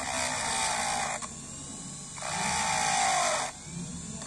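Handheld rotary tool with a carbide burr grinding a brass part in two bursts of a little over a second each, its whine dropping in pitch as the burr bites into the metal.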